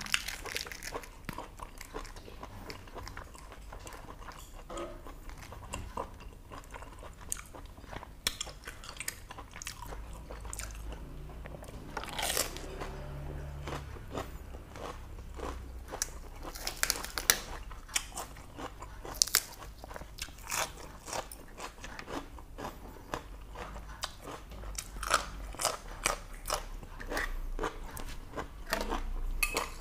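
Close-up eating sounds: a mouthful of boiled pork intestines wrapped in a raw cabbage leaf being bitten and chewed, with crisp crunches and many small wet clicks.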